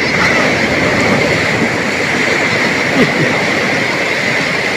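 Ocean surf on a beach, a loud steady rush of breaking and surging waves.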